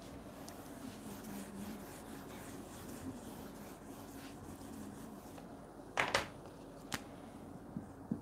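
A felt whiteboard eraser rubbing across a whiteboard in soft, repeated wiping strokes, then a sharp clack about six seconds in and a smaller click about a second later.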